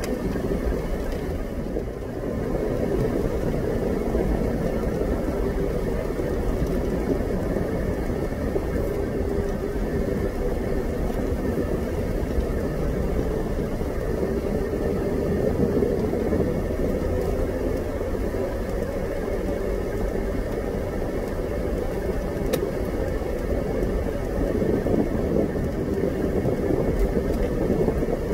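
Steady engine and tyre noise of a vehicle travelling along a road, a continuous low drone with a constant hum that holds nearly level throughout.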